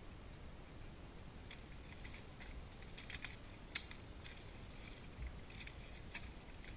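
Faint clatter of a pollaxe bout between two fighters in steel plate armour: a run of sharp knocks and metallic clinks as weapons and armour meet. It starts about a second and a half in, and the sharpest strike comes near the middle.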